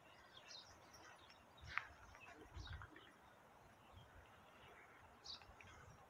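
Faint, scattered chirps of small birds, short separate calls with the clearest one about two seconds in, over a near-silent outdoor background with a few soft low thumps.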